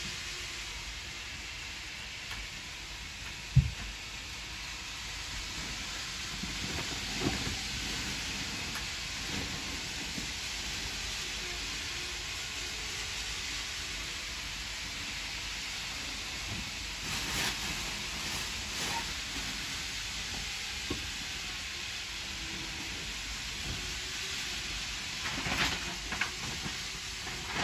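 Commuter trains running along the elevated tracks, heard through the window glass as a steady hiss of train noise. A single sharp knock comes about three and a half seconds in.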